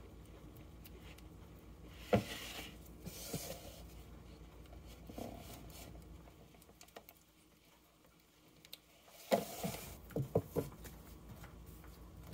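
Light clatter of plastic utensils and cups: a plastic spoon stirring and tapping in plastic measuring cups and containers handled on a counter, as a few short knocks, a sharp one about two seconds in and a quick run of several near the end.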